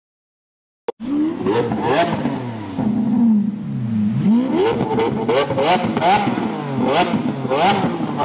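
Sports-car engine revving hard, its pitch climbing and dropping back several times, with a few sharp cracks among the revs. It starts suddenly about a second in, after a brief click.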